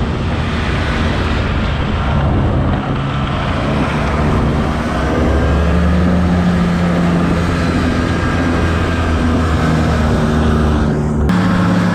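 Snowmobile engine running steadily under way, its note stepping up a little about five seconds in.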